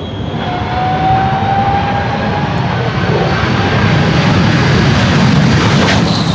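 Smoke and Thunder jet car's J34-48 turbojet at full power on its launch run: a loud, steady roar that comes up sharply at the start, with a high whine over it.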